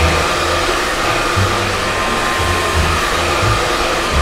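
Handheld hair dryer running steadily while blow-drying hair: a constant rush of air with a faint steady whine.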